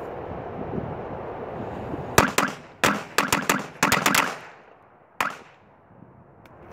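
A small pack of Black Cat firecrackers going off: a rapid, irregular string of about a dozen sharp bangs starting about two seconds in and lasting about two seconds, then one last bang about a second later.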